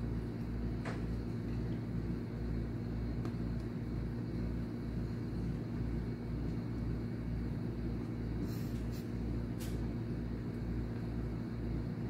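Steady low machine hum with a regular throb about twice a second, with a few faint light clicks over it, one about a second in and a couple near the end.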